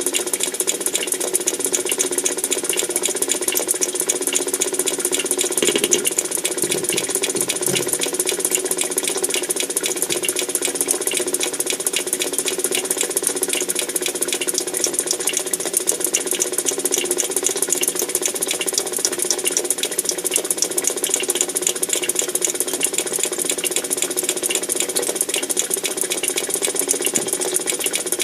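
Continuous fast mechanical rattling and clicking over a steady hum, with a brief heavier knocking about six seconds in; the uploader takes it for the sound of underground tunnel-digging work.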